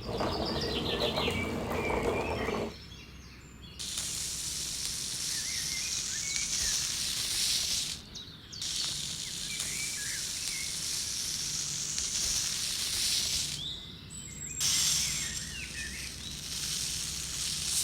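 Birds chirping over a steady high hiss, in stretches that cut in and out abruptly three times, after a few seconds of denser noise at the start.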